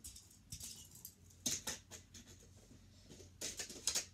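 Toy cars being handled and set on a plastic Hot Wheels parking garage: scattered light clicks and rattles in a few short clusters, the busiest near the end.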